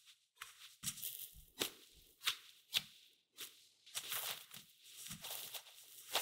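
Soft bread dough being worked and kneaded by hand in a glass mixing bowl: sticky squishing and tearing strokes, about one every half second, coming faster in the second half.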